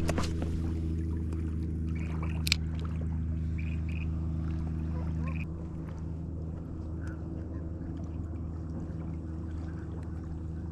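Small boat's outboard motor running steadily, easing down slightly about five and a half seconds in. A single sharp click about two and a half seconds in.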